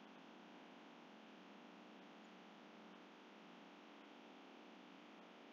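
Near silence: only a faint, steady background hiss and hum from the recording.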